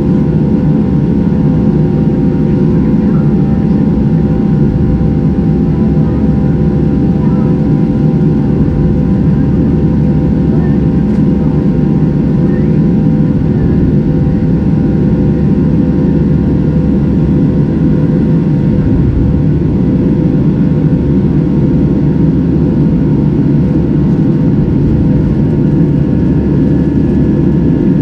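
Boeing 737-700 cabin noise heard from a window seat beside the CFM56-7B turbofan engine while the airliner climbs after takeoff: a loud, steady deep rush of engine and air noise with a few faint steady hum tones above it.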